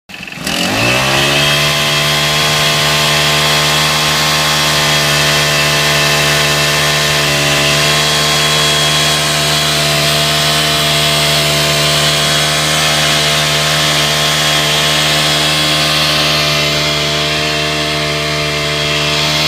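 Honda GX25 four-stroke engine of a portable valve actuator revving up in the first second and then running at a steady high speed while it drives a sluice gate through a bevel gearbox. The revs drop right at the end.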